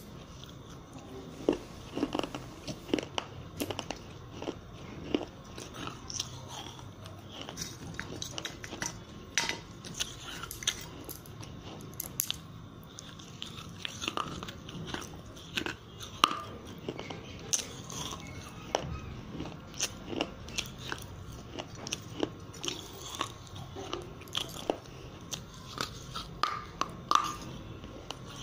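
Close-up crunching and chewing of broken fired-clay diya pieces: sharp, irregular cracks as the brittle clay is bitten and ground between the teeth.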